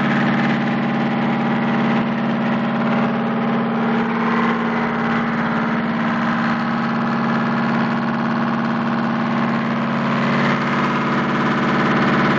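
Marine diesel generator set running steadily at a constant speed.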